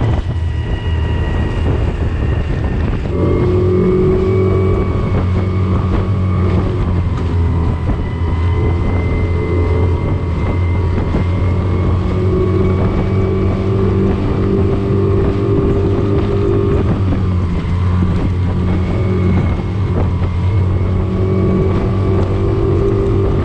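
15 hp outboard motor running flat out, pushing a small hard-bottom inflatable dinghy at about 26 mph, with wind buffeting the microphone. The engine note holds steady and shifts slightly about three seconds in.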